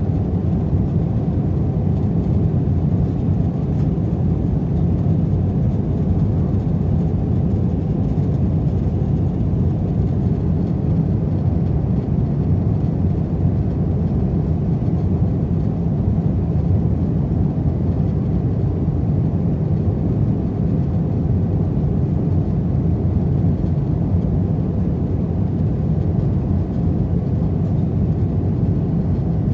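Steady low cabin roar inside an Airbus A319-112 on approach, heard from a seat over the wing: the CFM56 turbofan engines and the airflow over the wing with its flaps extended, even in level throughout.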